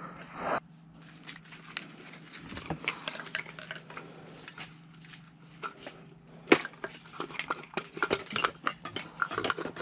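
Irregular light metallic clicks and clinks of hand tools and metal parts being worked in an engine bay, with one sharper click about two-thirds of the way through.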